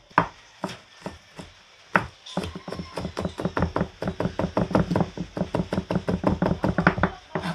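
Kitchen knife chopping garlic on a cutting board: a few single knocks, then a fast, even run of chops, about six a second, from about two seconds in until near the end.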